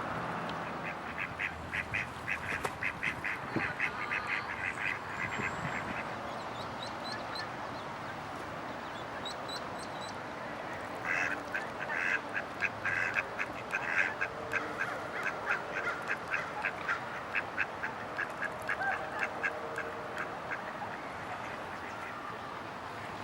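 Ducklings peeping in two long runs of short, rapid high calls, about five a second, with a few higher chirps between the runs.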